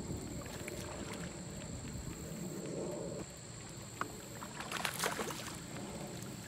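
Small hooked bass splashing at the water's surface as it is reeled in to the boat, with a burst of splashes about five seconds in.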